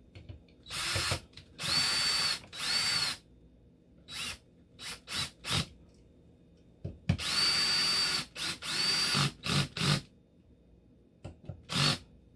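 DeWalt cordless drill/driver driving screws into a motor's housing, set low, in a series of trigger pulls: three runs of about half a second each, several quick short blips, then two more runs and a few more blips. Each run has a high whine that rises as it spins up and drops as it stops.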